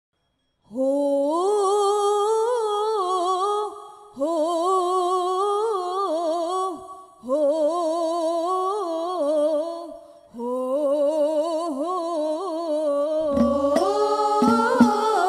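Unaccompanied devotional singing of a shalawat melody in long, ornamented phrases with short breaths between them. Hadroh Al Banjari frame drums come in about 13 seconds in.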